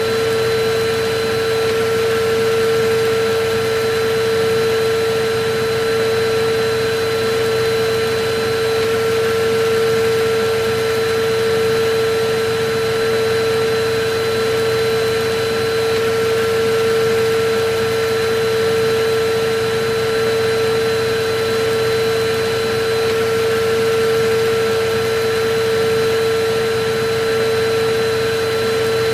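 Electric vacuum cleaner running continuously at a steady pitch: an even motor whine with a rushing hiss, unchanging throughout.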